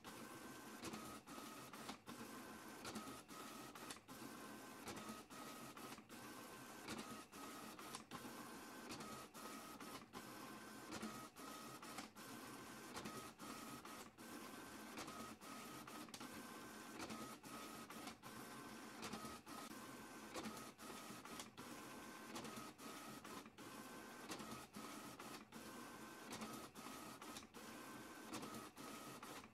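Printer running through a long print job: a steady mechanical whir with frequent short clicks and a faint tone that comes and goes in a repeating cycle.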